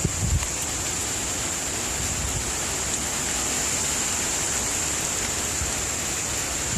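Steady rushing noise of heavy hurricane rain, with a strong high hiss. A few low thumps come right at the start.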